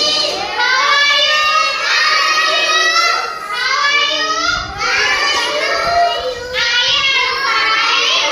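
Young children's voices singing an alphabet phonics chant, in short sing-song phrases with brief pauses between them.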